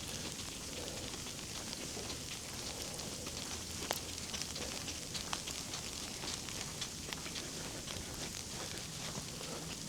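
Steady crackly hiss with many scattered small ticks, the sound of walking out in a snowstorm with snow and ice pellets falling and underfoot.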